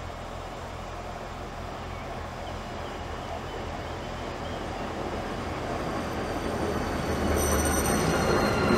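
Pesa Gama diesel locomotive of PKP Intercity (class 111Db) approaching and drawing alongside, its diesel engine running and growing steadily louder. A thin high squeal from the wheels joins near the end.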